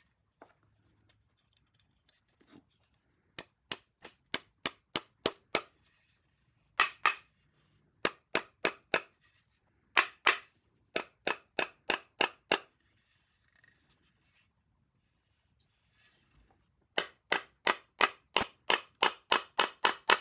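Runs of sharp hammer taps driving the wedge pin into a wedged nail tenon joint, drawing two sections of the chair's rim together. There are several short groups of taps, then a longer run of about a dozen near the end at roughly four taps a second.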